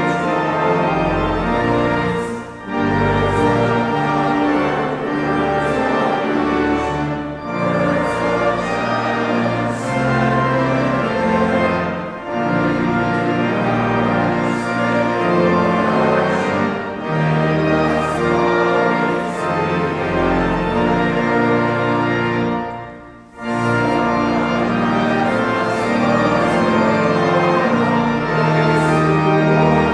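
Church organ playing a hymn in sustained chords, phrase by phrase, with brief breaths between the phrases.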